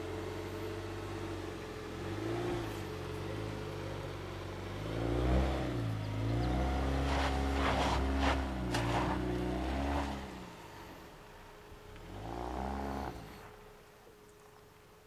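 Jeep Renegade Trailhawk's engine revving up and down as it climbs a steep sandy hill, loudest about halfway through, with the tyres scrabbling and throwing sand. It revs once more briefly near the top, then fades away.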